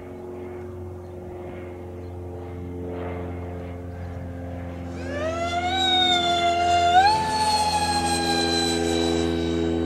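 Freewing Su-35S R/C model jet's electric ducted fans whining in flight. A steady low hum at first; about five seconds in the whine rises in pitch as the fans spool up, levels off, then steps up again about two seconds later and holds, louder.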